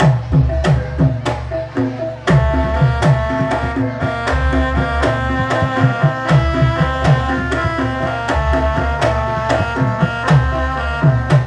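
Javanese gamelan music for a warok dance: hand drums beating a quick, steady rhythm with pitch-bending strokes, over low gong tones. Bright metal-keyed melody notes join about two seconds in.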